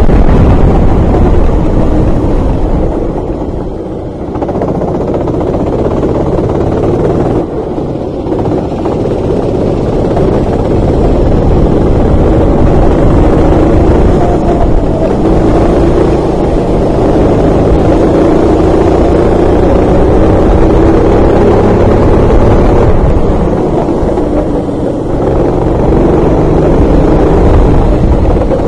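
Racing kart engine heard from on board, revving up along the straights and dropping off when the driver lifts, with brief dips about four and eight seconds in and again near the end.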